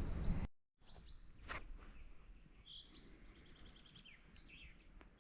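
Small birds calling over a quiet outdoor hush: short high chirps, one quick sweeping call, and a rapid trill of about a dozen evenly spaced notes. A loud low noise at the very start cuts off abruptly.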